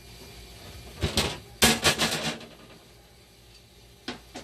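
Casing panels of a dialysis machine being handled: a short scrape about a second in, then a loud clattering rattle of panel parts, and two sharp clicks near the end.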